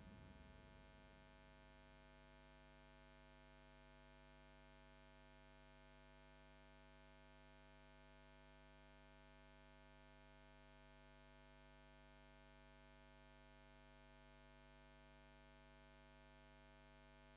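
Near silence: the last of the music fades out within the first second, leaving only a faint steady hum.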